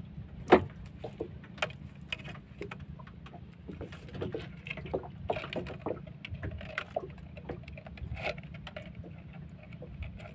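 Irregular small clicks, rustles and knocks of a fishing net and a plastic bottle being handled in a wooden boat, with one sharper knock about half a second in, over a low steady rumble.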